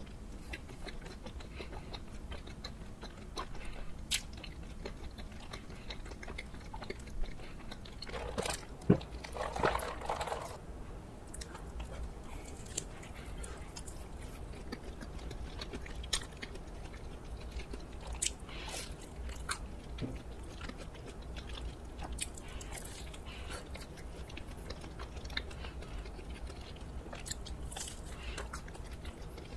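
Close-miked biting and chewing of a pizza croffle, a crisp waffle-pressed croissant topped with cheese and tomato, with scattered sharp crunches and mouth clicks. A briefly louder burst of noise comes about nine seconds in.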